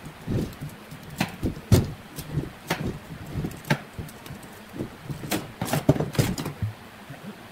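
Wooden staves and a disc being handled and knocked on a workbench while a steel hose clamp is worked with a screwdriver: irregular sharp knocks and clicks, about one or two a second.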